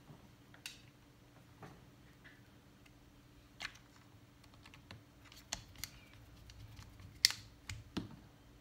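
Irregular light clicks and taps of small screws, tools and parts being handled inside an open laptop, the sharpest click about seven seconds in, over a faint steady hum.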